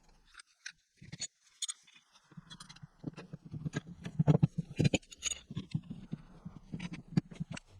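Irregular clicks and light knocks of small parts and tools being handled on a workbench, loudest about four to five seconds in, after a brief quiet spell near the start.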